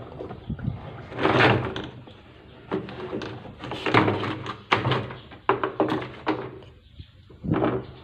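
Plastic pulsator of a top-loading washing machine turned back and forth by hand, swishing citric-acid and detergent cleaning solution around the tub with irregular splashes and plastic knocks.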